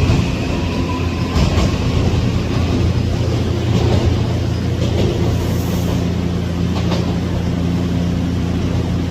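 Odakyu 5000-series electric train running at the station platform: a steady low rumble, with a few clicks of wheels over rail joints and a low humming tone joining about halfway through.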